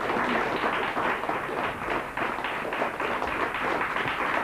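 Studio audience applauding, a steady dense clapping that carries on for some time.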